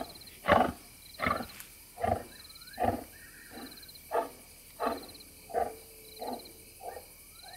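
African lion roaring: the series of short grunting roars that closes a roaring bout, about one every 0.7 seconds, growing fainter toward the end. Crickets chirp faintly behind.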